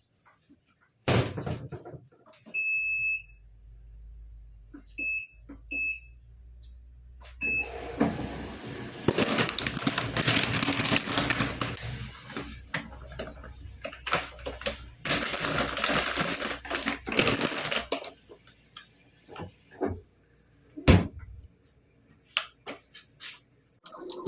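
Washing machine control panel beeping as its buttons are pressed: one long beep, then three short ones. The machine then hums and a steady rushing noise runs for about ten seconds, with a single sharp knock near the end.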